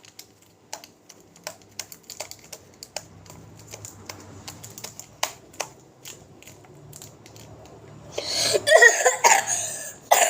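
Homemade clay slime being handled: scattered small sticky clicks and ticks, then a louder rasping burst about eight seconds in, close to a cough.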